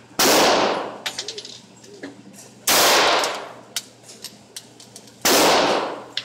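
.22 LR semi-automatic pistol fired three times, about two and a half seconds apart. Each shot is a sharp crack with a long echo in the indoor range.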